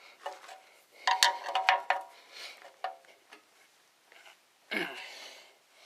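Metal parts and tools clinking against each other: a run of sharp clinks with a short metallic ring about a second in, then a few lighter taps.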